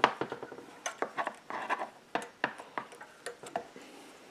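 A steel feeler gauge clicking and scraping against the intake rocker arm and valve stem of a Kohler SH265 engine: a quick run of small metal clicks and taps that eases off after about three and a half seconds. The 0.008 in blade will not go into the gap, a sign that the valve clearance is set tighter than spec.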